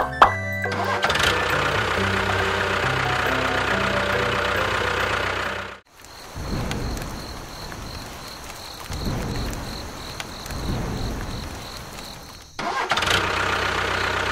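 Tractor engine running steadily, cut off abruptly about six seconds in. Rain falls with slow low rumbles for about seven seconds, then the engine sound comes back near the end.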